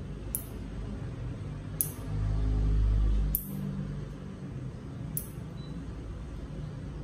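Nail clipper snipping fingernails: four sharp clicks, about one every second and a half. A low rumble swells for about a second in the middle and is the loudest sound.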